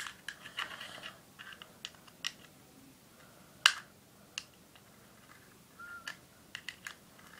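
Small metal clicks and ticks as the flint spring screw is screwed back into the bottom of a Zippo lighter insert, with one sharper click about halfway through.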